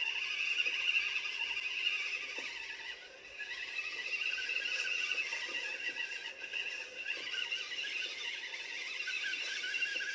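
Electric motor and gear drivetrain of a Carisma SCA-1E RC scale truck whining under throttle as it pushes through snow. It eases off briefly about three seconds in, then picks up again.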